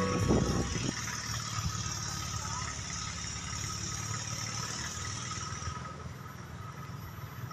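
Outdoor trackside ambience: a steady low rumble with a high steady hiss that stops about six seconds in. Music fades out in the first second.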